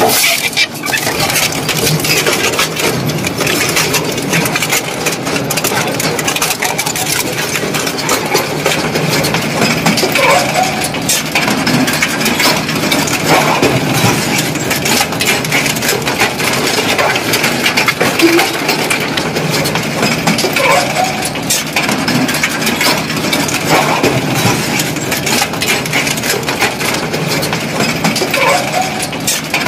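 Industrial shredder's hooked steel cutters tearing and crushing steel frames and pipe. The result is a loud, continuous clatter of metal banging, scraping and clinking, with short metal screeches now and then.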